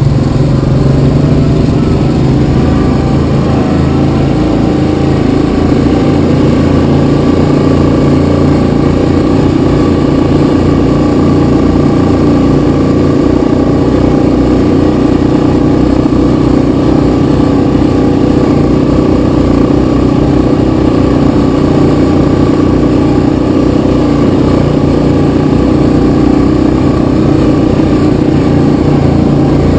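Yamaha Kodiak 700 ATV's single-cylinder four-stroke engine running under throttle while riding, picking up a little in the first few seconds and then holding a steady pace.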